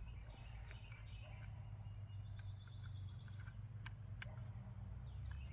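Quiet outdoor background with a steady low hum, a few faint clicks, and a brief high trill about two and a half seconds in.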